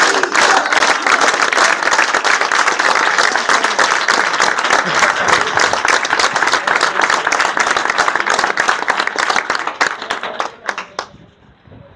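A crowd applauding, with voices mixed in. The clapping thins out about ten seconds in and has died away by eleven.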